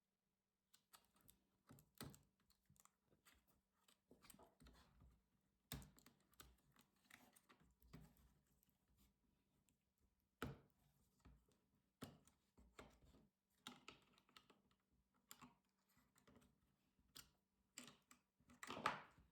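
Faint, irregular clicks and taps of a laptop's casing and parts being handled during disassembly, with a louder scraping handling noise near the end.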